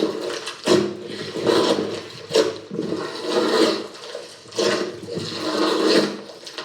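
Slime being squished by hand, squelching in uneven noisy surges about once a second.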